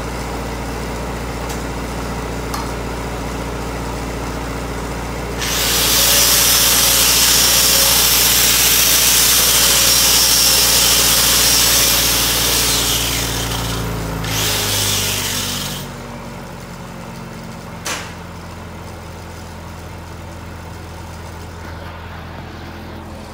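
Handheld angle grinder starting about five seconds in and grinding on the steel of a broken tree-shear jaw for about seven seconds, then winding down. Under it an engine runs steadily throughout, with a single sharp click near the end.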